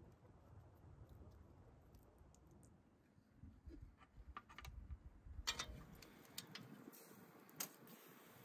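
Faint, scattered clicks and light knocks of a man working a bed of wood embers and charcoal, growing busier in the second half over a soft hiss.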